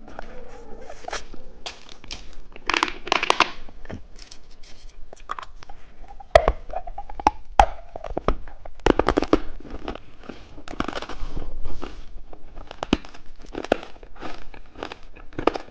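Plastic candy wrappers crinkling and tearing, with sharp clicks and cracks scattered throughout.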